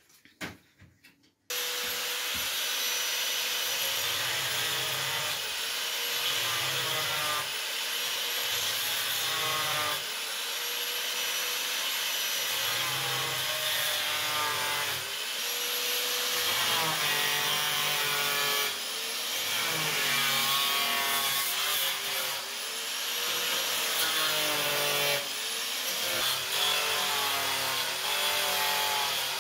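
Angle grinder cutting into the plastic housing of a third brake light along its edge, its pitch repeatedly dipping and recovering as the disc bites. It starts about one and a half seconds in.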